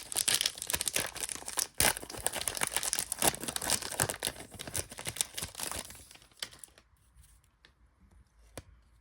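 Trading card pack wrapper being torn open and crinkled by hand, a dense crackling that fades out after about six seconds, leaving a few faint clicks.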